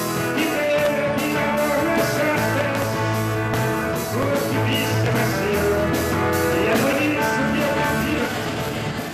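A rock song played by a live band: electric guitar and a drum kit, with a steady cymbal beat about three or four strokes a second, and a man singing.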